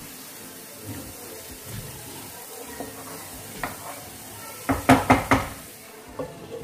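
Spatula stirring mustard flowers and brinjal in a nonstick frying pan over low heat, with faint sizzling and light scraping. About five seconds in come four quick, sharp knocks against the pan, then a light clink as a glass lid goes on.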